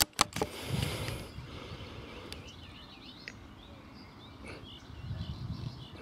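Outdoor field ambience with small birds chirping in the background, a cluster of short calls about halfway through. A couple of sharp metallic clicks right at the start are the tail end of a bolt-action rifle's bolt being worked between shots.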